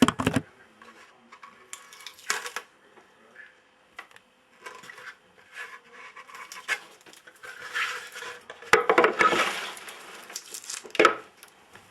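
Fingerboard and small ramp being handled: scattered clicks, knocks and clatter of small hard parts, with a longer, busier stretch of scraping and rattling about nine seconds in.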